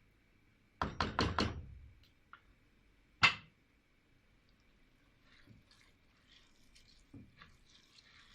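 A spoon knocking against a cooking pot: a quick clatter of four knocks, then one sharp, louder knock, then a few faint taps.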